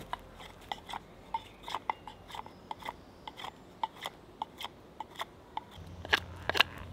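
Knife blade shaving a wooden stick into a taper: a quick run of short scraping strokes, about three a second, with a few louder strokes near the end.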